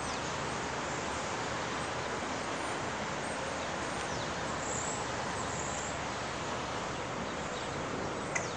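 Steady outdoor rushing noise of wind in the trees and on the microphone, with a few faint high chirps around the middle.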